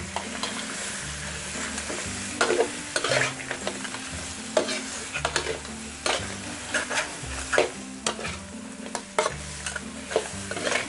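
Crab pieces stir-frying in oil in a wok: a steady sizzle, with a metal spatula scraping and clanking against the wok at irregular moments as the crab is turned.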